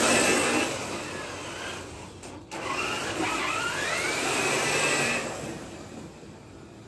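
Traxxas TRX-4 RC crawler's electric motor and gears whining as it pushes through deep snow. The whine is loudest at the start, cuts out briefly about two and a half seconds in, then climbs in pitch as the throttle comes back on, and fades near the end.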